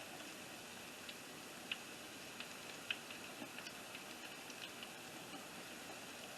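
Hot oil deep-frying battered green tomato fries: a faint steady sizzle with scattered sharp pops, the two loudest a little under two seconds in and about three seconds in.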